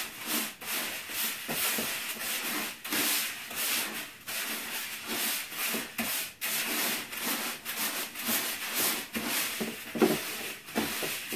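Hands mixing flavoring-soaked trout chow pellets in a plastic bucket. The pellets make a continuous gritty rustle and scrape against each other and the bucket walls, in uneven pushing and pulling strokes, with one sharper knock about ten seconds in.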